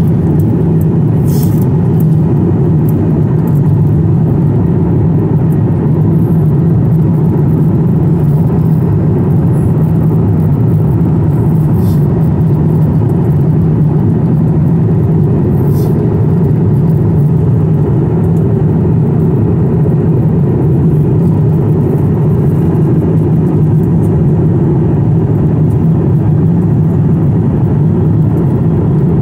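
Airliner cabin noise at cruise: a steady, constant low roar of jet engines and airflow heard from inside the cabin.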